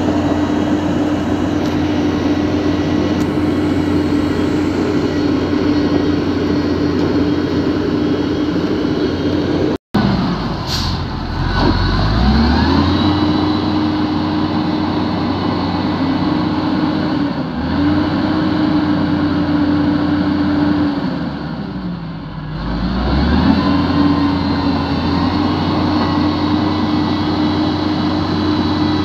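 Electric motors and gears of a Huina radio-controlled toy wheel loader whining steadily as it drives and works the bucket. The sound cuts out for an instant about ten seconds in, and afterwards the whine rises in pitch as the motors speed up, dips once as they slow, and climbs back.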